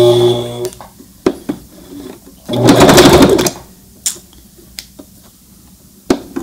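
Brother ST371HD sewing machine running as it stitches into thick 3.5 oz leather. It stops within the first second, runs again for about a second near the middle, and gives a few light clicks in between. The needle is struggling to get through, and the thread is knotting up under the leather.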